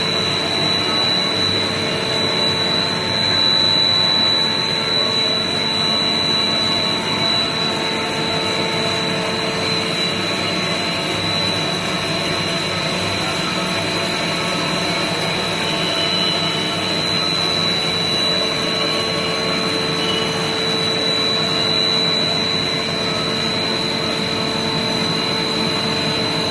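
Large industrial bandsaw cutting through a solid steel block, running steadily with a constant high whine over a mechanical hum.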